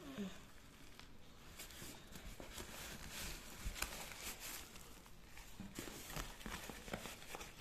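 Corrugated cardboard package being torn open by hand: faint, irregular crackles and snaps of the cardboard, with crinkling of a plastic wrapping.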